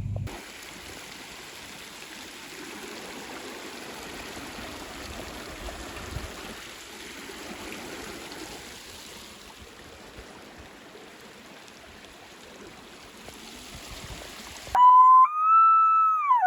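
Steady rushing noise, then near the end a loud, long whistled elk call, holding about one pitch for a second and a half and dropping away at the end.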